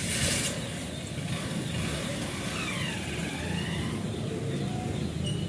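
A motor vehicle's engine running, a low steady rumble, with a short hiss right at the start.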